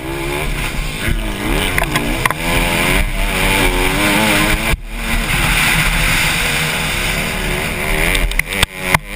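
Honda CRF150R four-stroke single-cylinder dirt bike engine revving hard under full race throttle, its pitch climbing and falling repeatedly as it pulls through the gears. The sound breaks off sharply for an instant about halfway through and twice more near the end.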